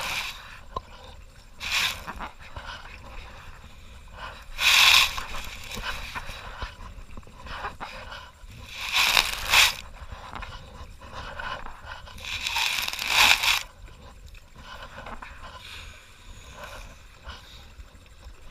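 Kayak paddle strokes: the blade splashes into the water four times, about every three to four seconds, the last three strokes louder.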